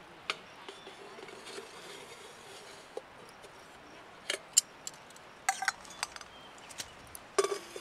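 Stainless steel cookware clinking and knocking as a pan of buns is handled with tongs and the billy pot oven's lid is lifted. Several sharp metal clinks come singly, the loudest about halfway, one ringing briefly just after, with a quick run of clinks near the end.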